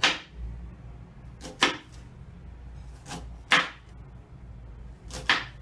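Kitchen knife slicing a red onion on a wooden cutting board: about six separate short, sharp cuts, irregularly spaced, two of them in quick pairs.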